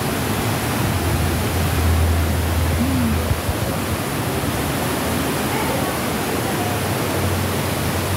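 A steady, even rushing noise, with a low hum swelling under it about two seconds in and again near the end.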